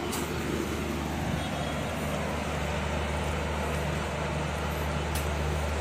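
Steady low mechanical hum over a constant background hiss: the ambience of a railway station platform with trains standing. There are two faint clicks, one at the start and one near the end.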